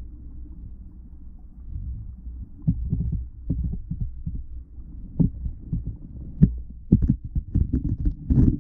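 Muffled underwater sound of an eel nudging and mouthing a GoPro's waterproof housing: a low rumble with sharp knocks and bumps on the camera. The knocks start after about two seconds and come faster from about five seconds on.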